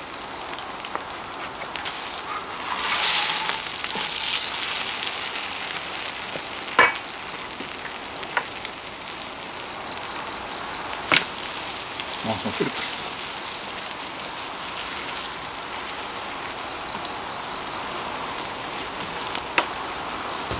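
Oil sizzling steadily under grated pumpkin pancakes frying on a cast-iron cauldron-lid griddle, with a few sharp clicks of the spatula on the lid.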